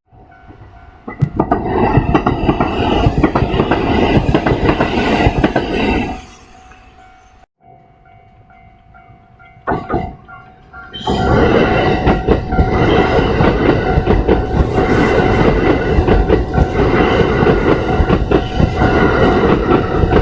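Kintetsu Series 21 electric commuter trains passing over a level crossing, with wheel rumble and clatter, while the crossing's warning bell rings steadily. The train noise falls away about six seconds in, leaving mostly the bell, then breaks off sharply. A train passes loudly again from about eleven seconds on.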